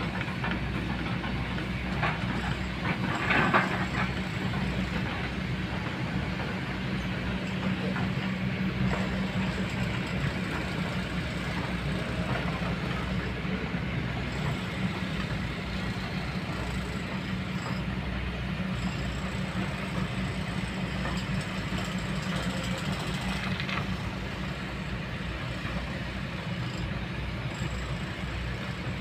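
Kobelco long-reach excavator's diesel engine running steadily as the machine works, with a few short knocks about two to four seconds in.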